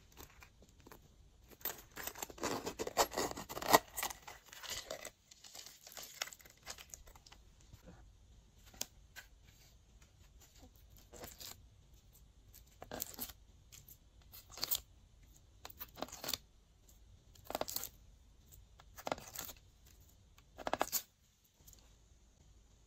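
Glossy slime being worked by hand, crackling and popping as it is stretched and squeezed. A dense stretch of crackling comes in the first few seconds, then a run of separate short pops and squelches about every second and a half in the second half.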